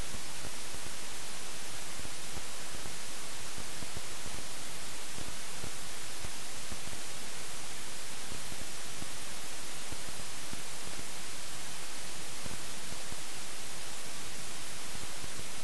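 Steady, unchanging hiss of electronic static, strongest in the highs, with no other sound in it: the helmet camera's audio recording failed and captured only noise.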